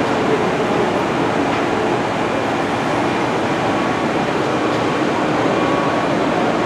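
Steady running noise of a train moving along the track: an even rumble of wheels on rail.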